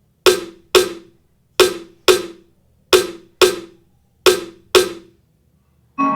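A reggaeton-style drum hit sound effect: eight sharp strikes with a short ring, played in four pairs, the two hits of each pair about half a second apart, with silence between.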